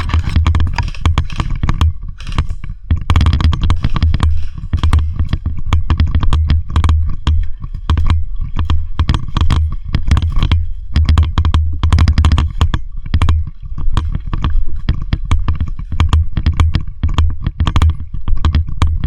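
Footsteps crunching and scraping through dry leaf litter and brush, with gear and clothing rubbing close to the microphone and heavy low thuds, irregular throughout.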